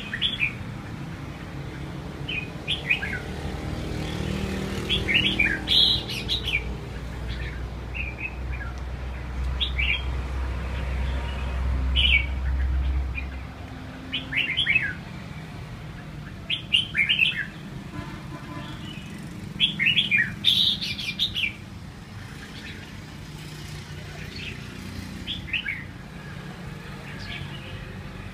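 Red-whiskered bulbul calling in short bursts of quick, high, downward-slurred notes, a cluster every second or two. A low traffic rumble swells and fades through the first half.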